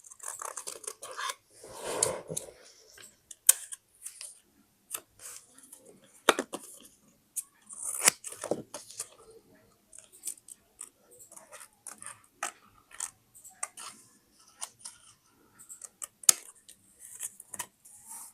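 Paper-craft sounds: scissors snipping paper, with paper being handled and rustled, in irregular sharp snips and short rustles.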